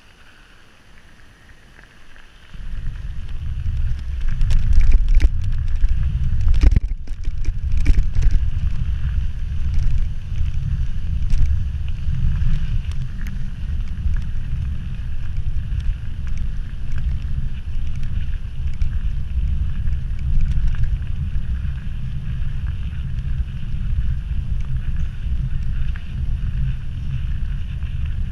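Wind noise rumbling over the microphone of a mountain bike's camera, starting abruptly about two and a half seconds in as the bike rides a gravel road at speed. A few sharp knocks from the bike jolting over bumps come between about five and eight seconds in.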